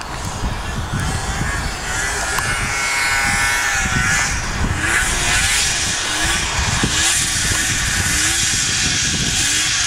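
Polaris XLT snowmobile's two-stroke engine running as the sled approaches across the snow, growing louder. Its pitch rises and falls several times with the throttle.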